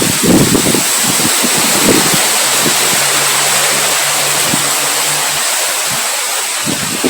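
Heavy rain falling in a steady hiss, with irregular low rumbles of wind gusts and a low hum for a few seconds in the middle.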